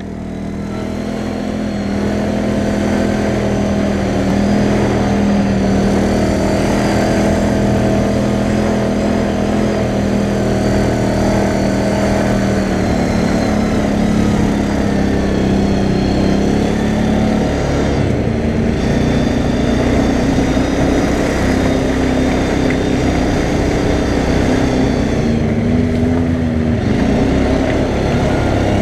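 CFMoto 500A quad bike's single-cylinder four-stroke engine running under steady throttle while riding, heard up close from the rider's helmet camera. The engine pitch holds fairly even, shifting slightly a few times. The sound fades in over the first couple of seconds.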